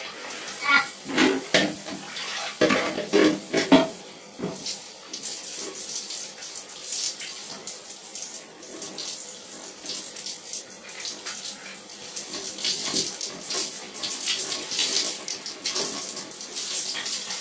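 Water splashing and running as a man rinses his hair, with a few louder, irregular splashes in the first four seconds, then a steady wash of water.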